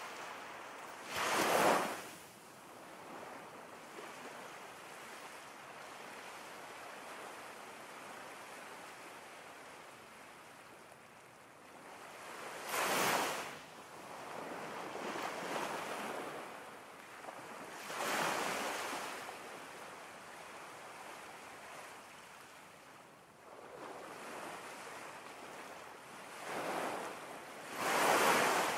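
Ocean waves washing in: a steady hiss of surf that swells into louder breaking surges several times and then falls back.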